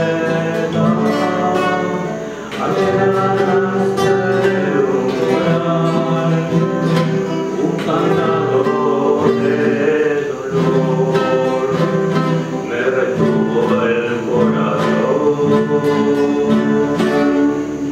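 A man singing a tango to his own acoustic guitar, plucked chords under a held, sung melody, with short breaks between phrases.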